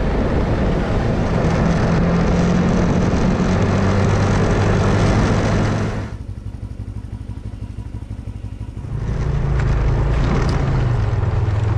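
Snowmobile engine running at speed. About six seconds in it falls off to a low hum for a few seconds, then comes back up to full pitch and level.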